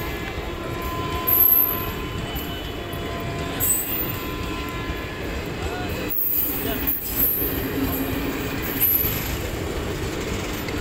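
Passenger train coaches of the Gaya–Patna Intercity Express rolling past close by: a steady rumble of wheels on the rails, with thin high wheel squeals coming and going.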